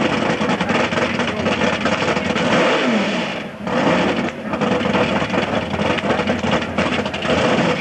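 Loud mud-racing engine running hard, its pitch falling briefly a couple of times, with a short dip in level about three and a half seconds in.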